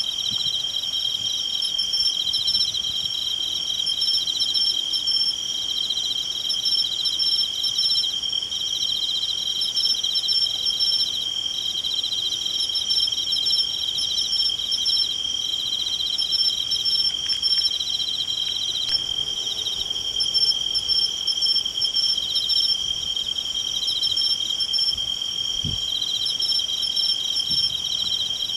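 Chorus of crickets and other insects chirring steadily: one unbroken high trill with several fast-pulsing trills layered over it.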